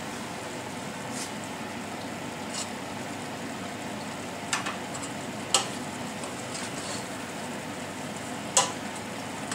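Filling sizzling steadily in a pan while it is stirred, with a few sharp clicks of the spoon against the pan, the loudest around the middle and near the end.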